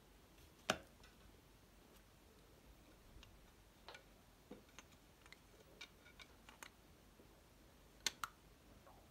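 Thin steel knife blanks clicking and ticking as they are handled: one sharp click under a second in, a few faint ticks in the middle, and two sharp clicks close together near the end, with near silence between.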